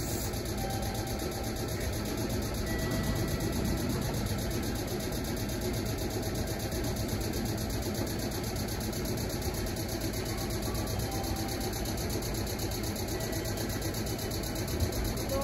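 Steady hum and whir of Meitetsu 5000 series electric trains standing at a platform, one set creeping slowly toward the other to couple, with a brief sharp click near the end.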